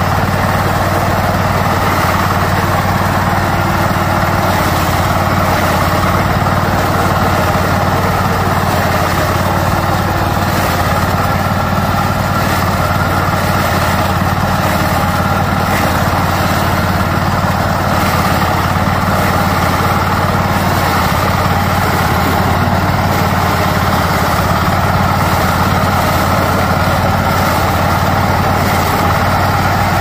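Small engine of a walk-behind corn harvester running steadily under load as the machine moves along a row of standing corn, a constant drone with a low hum.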